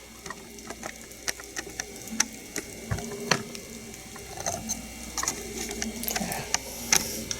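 Scattered light clicks and taps at irregular intervals, with a soft thump about three seconds in, from handling an unpacked elevator fixture panel and its packing.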